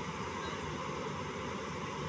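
Diesel engine of a JCB 205 tracked excavator running steadily as the machine works its way off a lowbed trailer.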